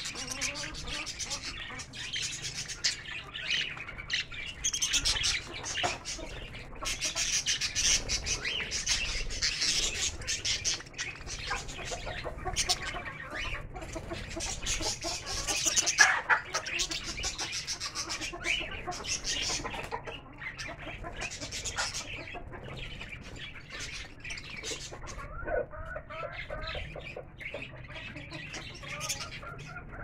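A flock of budgerigars chattering, with a busy, continuous mix of high chirps and warbles, plus some lower clucking from chickens.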